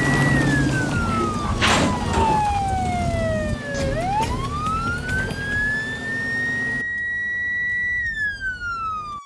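Police car siren wailing in slow sweeps: the pitch holds high, slides down over about four seconds, climbs back up and holds, then starts falling again near the end. There is a short burst of noise about two seconds in, and a background rumble that cuts off abruptly about seven seconds in.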